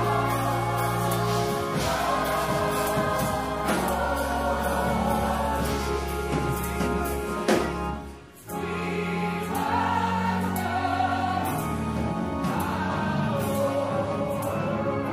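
Gospel music: a choir singing over Hammond organ and keyboards, with a short break where the music drops away about eight seconds in.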